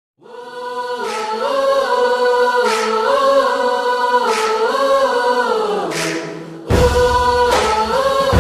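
Background music: choir-like vocal music of held, gliding notes, with a swelling accent about every second and a half. A heavy bass comes in near the end.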